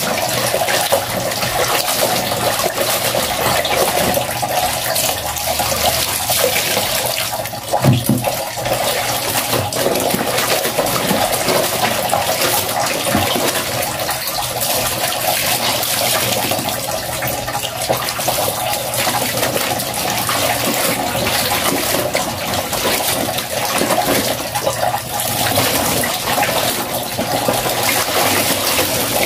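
Clothes being hand-scrubbed in a plastic basin of soapy water: continuous sloshing and splashing of water and wet fabric, with a brief knock about eight seconds in.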